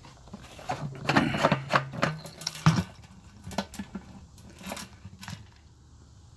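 Light clicks, taps and rattles of parts being handled on a pressure washer's gasoline engine. They are bunched in the first half and thin out toward the end, with a brief low hum among them.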